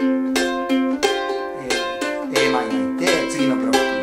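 Ukulele strummed in an even rhythm of about three strokes a second, moving through the chords C, F, G7 and Am.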